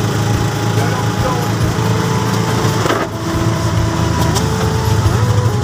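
Motorcycle engine of a tricycle running steadily, heard from inside its sidecar, with a steady hiss of tyres on the rain-wet road.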